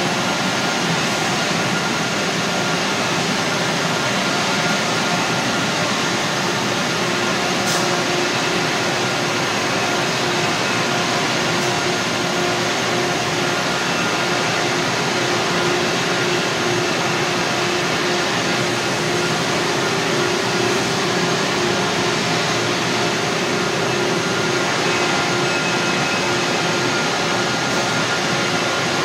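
Steady drone of running machinery with a constant hum on top, unchanging throughout, like the continuous noise of equipment running among large process pipes and tanks.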